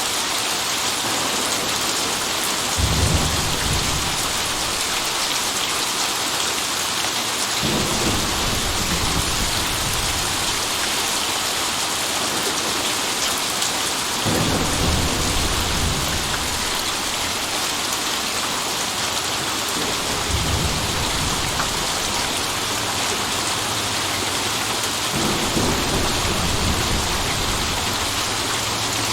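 Steady rain falling, with five low rolls of thunder that start abruptly and fade over a few seconds, about every five or six seconds.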